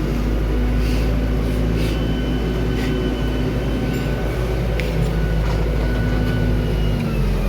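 Tractor's diesel engine running steadily under load while rolling a silage clamp, with a deep rumble, a few light knocks and rattles, and the engine note dropping slightly near the end.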